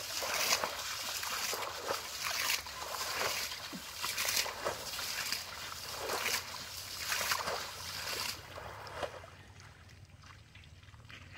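Muddy water being scooped and flung out by hand from a shallow pool in quick repeated splashes, which stop a little more than two thirds of the way through.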